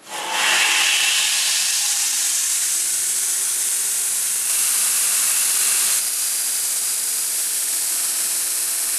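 Belt grinder starting up: the running belt's loud hiss comes in suddenly, with a faint whine rising in pitch over the first few seconds as the motor comes up to speed. The steel knife guard is then pressed to the belt and ground, throwing sparks, to shape its oval cross-section.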